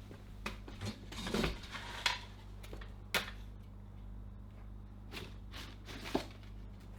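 Scattered light knocks and clatters, as of objects being handled, over a steady low hum.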